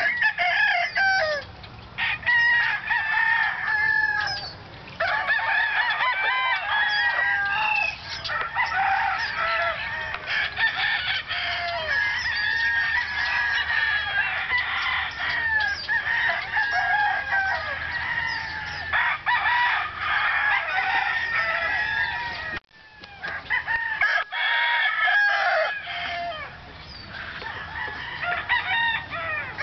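Many roosters crowing at once, call after call overlapping with no break, with some clucking among them. The sound drops out briefly about three quarters of the way through.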